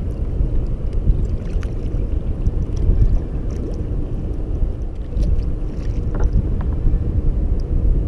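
Kayak being paddled on calm water: splashes and drips from the paddle and water lapping at the hull, over a steady low wind rumble on the microphone.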